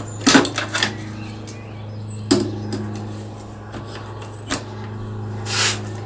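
Handling noises as an air compressor is set into a motorbike's tail section and its wiring is handled: a few separate clicks and knocks of hard parts, and a short rustle near the end, over a steady low hum.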